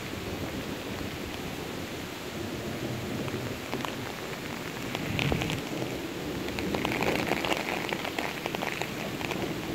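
Heavy rain falling steadily, with sharper close drops pattering around the middle and through much of the second half.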